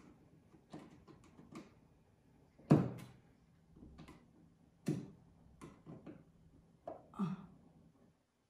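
A string of irregular knocks and clunks, about eight in all, the loudest about three seconds in: tools and fittings being handled and knocked against the wall while an old screw is worked loose.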